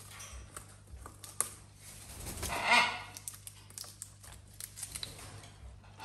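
Parrot rustling and tearing at fresh corn-stalk leaves: scattered small crackles and clicks. A brief louder call, with a clear pitch, sounds about two and a half seconds in.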